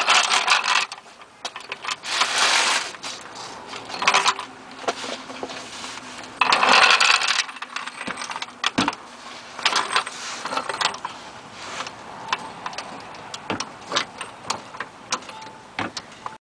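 Steel floor jack being rolled into place under a car and pumped up. Bursts of scraping and rattling come in the first half, then a run of irregular metallic clicks and knocks as the saddle rises.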